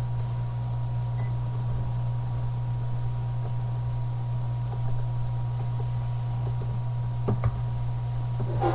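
Steady low electrical hum in the recording, with a faint steady higher tone, a few faint scattered clicks and a couple of soft knocks about seven seconds in.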